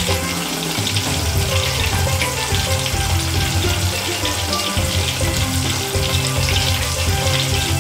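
Battered orange segments deep-frying in hot oil in a small steel bowl: a steady sizzle.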